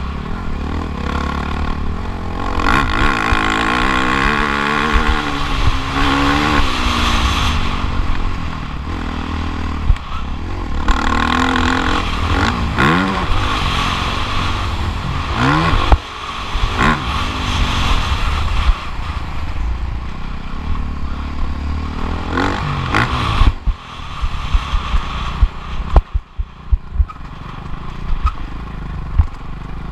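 Motocross bike engine revving up and falling back again and again as it is ridden hard round a dirt track, with a steady rumble of wind on the microphone. About three-quarters of the way through comes a run of sharp knocks and clattering.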